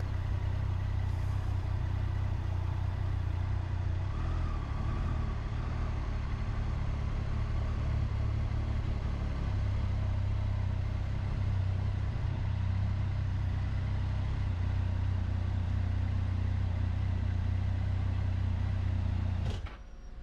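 Triumph Tiger 800 XCA's three-cylinder engine running under way, a steady low drone. It drops away abruptly near the end.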